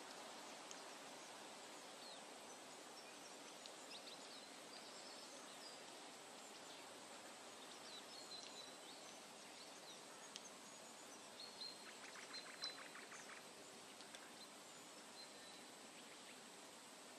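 Faint forest ambience: a steady low hiss with scattered short, high bird chirps, and a brief rapid run of ticks about twelve seconds in.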